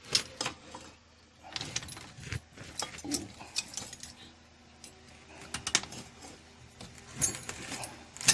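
Small metal engine parts clinking and rattling as they are handled and put away, with bursts of rustling between the clinks and a sharp clack near the end.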